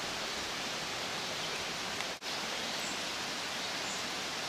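Steady rushing outdoor noise, even and unbroken, with a brief dropout a little over two seconds in.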